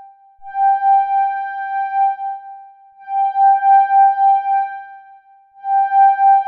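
Music: a single high electronic keyboard note, held and repeated three times about two and a half seconds apart, each with a quick wavering tremolo and fading away before the next.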